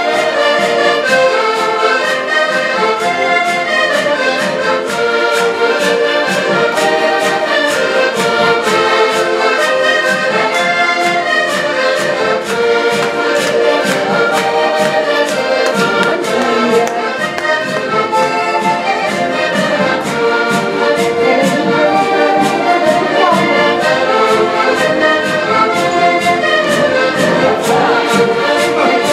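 Accordion ensemble playing a Portuguese folk tune together, with a steady beat.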